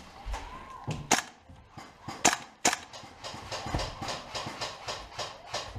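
Airsoft guns firing single shots: a scattered series of sharp cracks, three of them loud, with fainter shots between.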